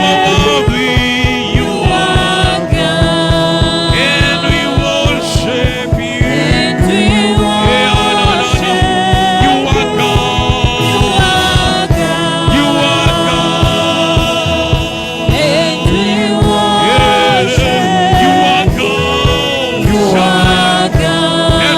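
Gospel worship music: voices singing together over a steady beat with bass and keyboard.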